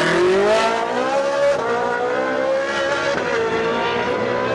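Ferrari 458 Challenge Evo's naturally aspirated V8 accelerating hard away from a standing start. The revs climb through the first second or so, then hold with brief dips at gear changes.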